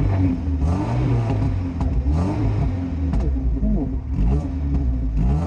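1987 Alfa Romeo Spider's twin-cam four-cylinder, straight-piped with no catalytic converter, blipped about five times in a row, each rev rising and falling, with popping on the overrun after the revs. The popping has come on since the intake was refitted slightly differently.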